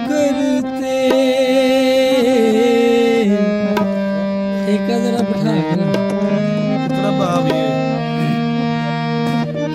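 Harmonium and tabla playing the instrumental introduction to a ghazal. Sustained harmonium notes carry the melody, with a wavering held note in the first few seconds and tabla strokes through the rest.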